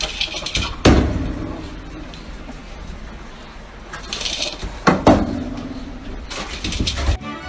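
Two loud bangs about four seconds apart, each followed by a short ringing tail, over steady background noise.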